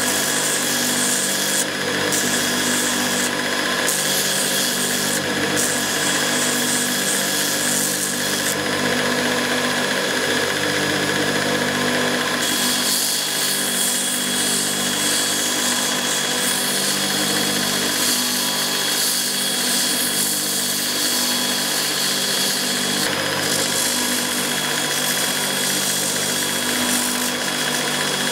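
Belt grinder running steadily, with the hiss of steel being ground against the abrasive belt that comes and goes as the small handle fittings are pressed on and lifted off.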